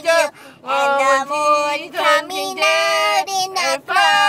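A high voice singing a slow melody phrase by phrase, with brief breaks between phrases and a long held note beginning near the end.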